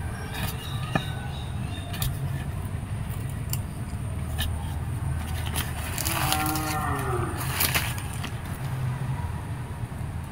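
A cow moos once, about six seconds in, one long call lasting about a second and a half. Around it come scattered knocks and scrapes of a metal digging tool working soil and roots in a hole, over a low steady hum.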